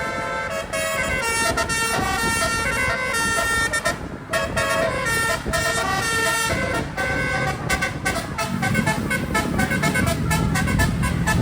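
Multi-trumpet telolet bus horn playing a tune, its several horn tones stepping quickly from note to note, breaking off briefly about four seconds in. A low rumble grows under it in the last few seconds.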